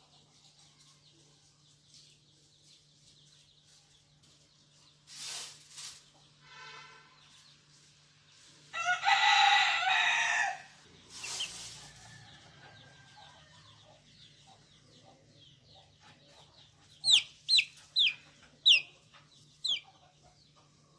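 A rooster crows once midway, a pitched call of about two seconds, between a few brief rustles. Near the end a baby chick gives five short, high peeps, each falling in pitch.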